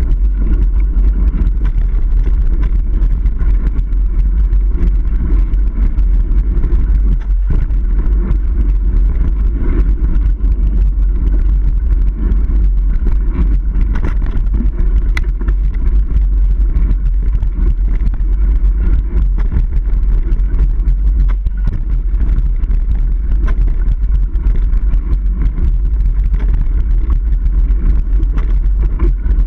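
Mountain bike rolling fast over dirt singletrack: a steady, loud low rumble of tyres on the trail and wind buffeting the action-camera microphone, with a few sharp clicks and rattles from the bike about halfway through.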